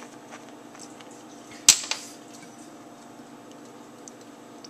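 A sharp knock of a hard kitchen item being handled, with a smaller knock just after, over a steady low hum and a few faint ticks.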